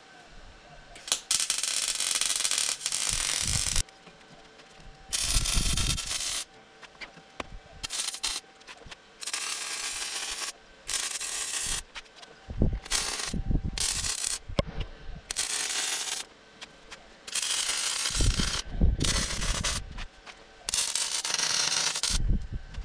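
MIG welder laying a series of short welds on the steel tube chassis: a string of crackling, sizzling bursts, each from under a second to about three seconds long, starting and stopping abruptly as the trigger is pulled and released.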